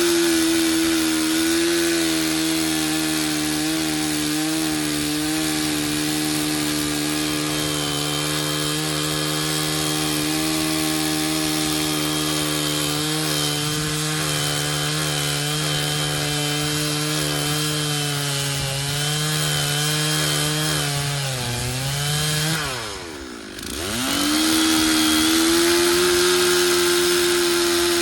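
Stihl 066 two-stroke chainsaw at full throttle cutting through cottonwood, its engine holding a steady high pitch under load. About 22 seconds in the revs sag, dive briefly, then climb straight back to full speed.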